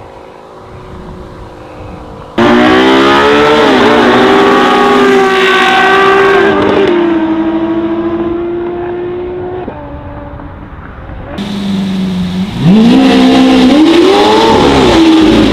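Supercar engines revving hard and accelerating, pitch climbing and then dropping at gear changes, in several short edited clips. The sound jumps to full loudness abruptly about two seconds in, and a run of quick rises and falls in revs comes near the end.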